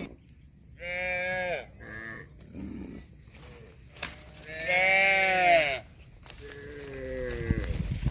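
Farm animal calling four times in bleat-like cries, the loudest and longest about five seconds in, the last falling in pitch near the end.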